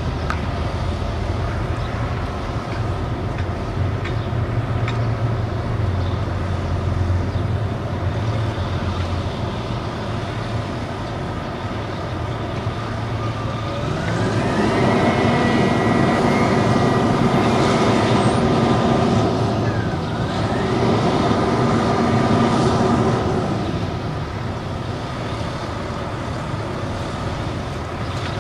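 Bucket truck's engine idling steadily. About halfway through, a chainsaw revs up and runs at high speed for about ten seconds, dipping in pitch once, then winds down.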